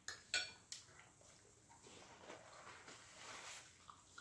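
A metal fork clinking and scraping on a china dinner plate: three sharp clinks in the first second, the second the loudest, then fainter scraping and ticks.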